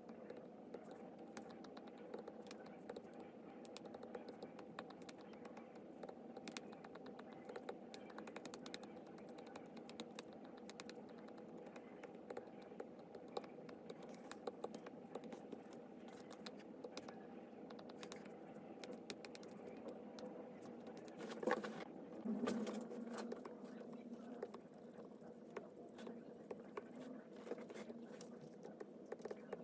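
Stylus tip tapping and rubbing on a tablet's glass screen, many quick light clicks, with a louder knock about two-thirds of the way through.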